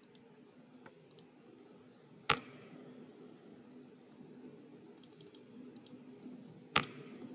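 Computer keyboard and mouse clicks: scattered light taps, with two louder, sharper clicks, one about two seconds in and one near the end, over a faint steady hum.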